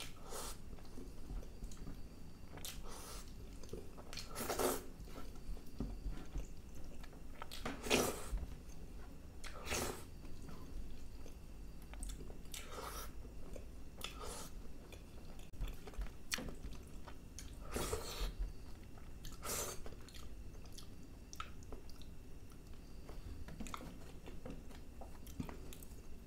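Close-miked chewing of mouthfuls of spicy chicken masala in gravy, eaten by hand: short mouth noises every second or so, some louder than others.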